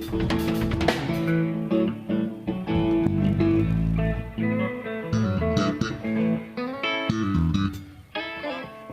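Guitar being played alone during a sound check, a run of plucked notes and chords with a deep low note about halfway through.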